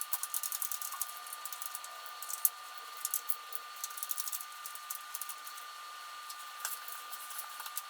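A small power tool running with a steady whine, with irregular clicks over it, while the motorcycle's seat bolts are being taken out.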